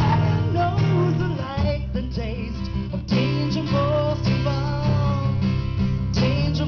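Live band playing an instrumental passage of a blues-rock song: guitars strumming steady chords, with a wavering, bending melody line over them.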